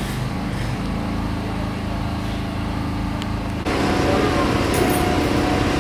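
Steady machine hum with several constant tones, jumping louder and fuller about three and a half seconds in.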